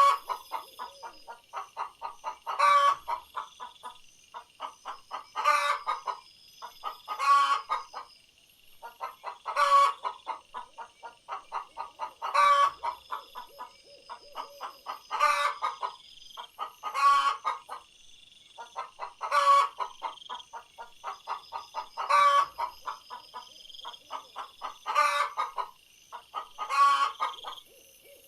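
Hen cackling: runs of quick clucks, each building to a louder drawn-out squawk, repeating about every two and a half seconds. A steady high-pitched drone sits in the background throughout.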